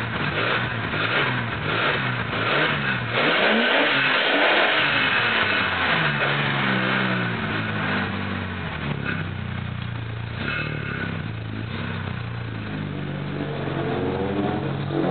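BMW E34's M30 straight-six engine and exhaust being revved. The note is loud and rough for the first few seconds, then glides up and down, holds steadier through the middle, and rises again near the end.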